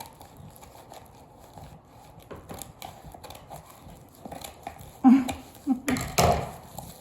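Packaging being opened by hand: faint scattered crinkles and scrapes, then a few louder rustles and a rip about five to six and a half seconds in.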